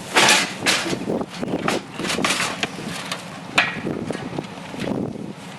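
Irregular knocks, clunks and scraping of a discarded water heater being shoved and pressed into place for hauling as scrap, with a sharp knock about three and a half seconds in.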